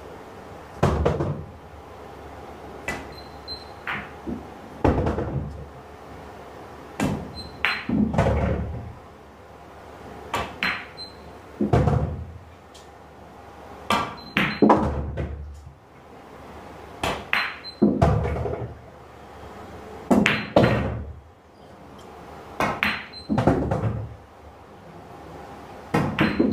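Background music: a heavy percussive hit with a falling sweep, repeating about every three seconds over a steady low bed.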